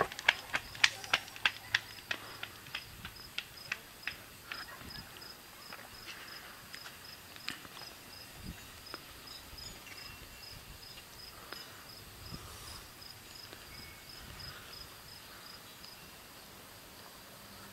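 Footsteps of someone running away, about three steps a second, fading out over the first several seconds. Behind them an insect chirps in steady, even high pulses.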